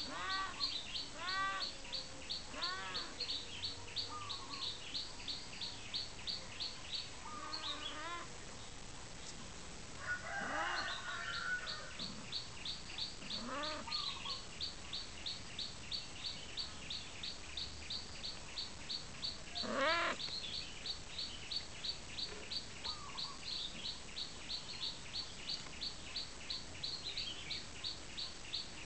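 Several short cat mews, the loudest about two-thirds of the way through. Behind them, a high chirp repeats steadily about three to four times a second, with a brief pause about a third of the way in.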